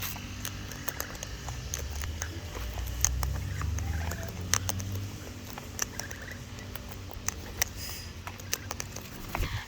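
Birds feeding on the ground: scattered sharp clicks and taps of pecking and scratching at food. Under them runs a low steady drone of background garden machinery, strongest a few seconds in.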